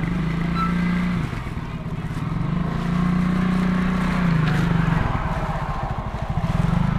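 Small motor scooter engine running close by, its hum rising and falling in pitch a few times as it revs up and settles back.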